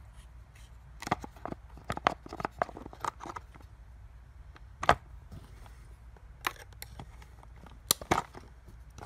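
Irregular clicks, taps and rattles of plastic and metal parts of a Poulan PL3314 chainsaw's bar and chain being handled and fitted, with the sharpest knocks about five seconds in and near the end. A steady low hum runs underneath.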